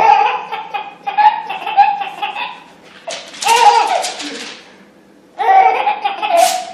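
Baby laughing hard in repeated bursts of belly laughs. Between the bursts, paper is torn, about three seconds in and again near the end, and each tear sets off fresh laughter.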